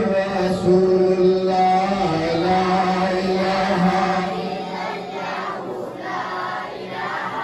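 A man's voice chanting a melodic religious recitation into a microphone, in long held, wavering notes that grow softer in the second half.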